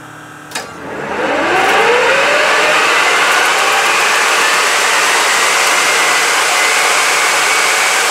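Fairchild J44 turbojet starting up: a click about half a second in, then the engine's roar builds over the next second with a rising whine. It settles into a loud steady rush, with a high whine slowly climbing in pitch as the engine spools up.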